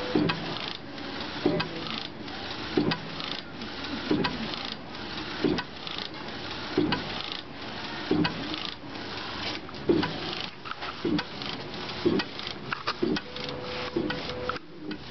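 Fast T-Jet direct-to-garment printer running, its print-head carriage shuttling back and forth across the shirt with a steady mechanical hiss and a sharp knock at each pass, about once every second and a half. A short steady hum sounds near the end.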